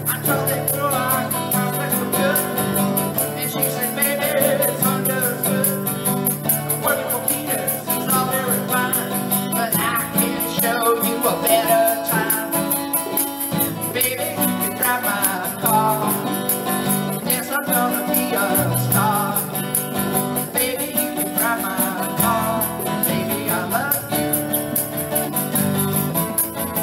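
Acoustic guitar strummed in a steady rhythm, with a man singing along to his own playing.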